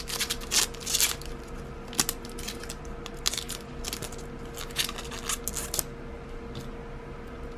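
Handling noise from a metal watch deployment clasp and its packaging: a run of quick, light clicks and rustles, with one sharper click about two seconds in, dying down about six seconds in.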